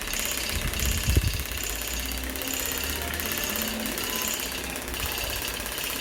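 Scalp micropigmentation tattoo machine buzzing steadily as its needle works the scalp, with a brief low thump about a second in.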